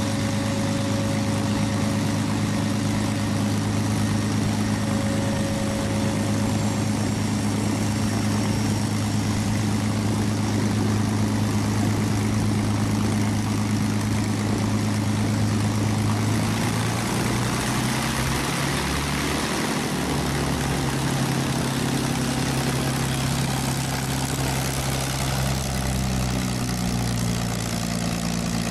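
P-51D Mustang's Packard Merlin V12 idling with its propeller turning: a steady, even engine drone. A little past halfway the engine note changes pitch.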